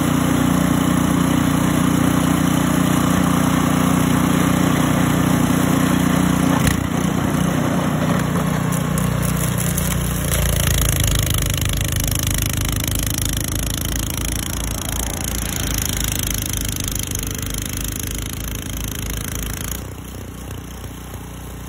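Small engine running steadily; about seven seconds in its note drops into a slower, even throbbing, and it grows quieter towards the end.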